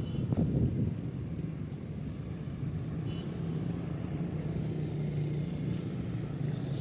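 Road traffic: a motor vehicle's engine running steadily as a low hum, a little louder about half a second in.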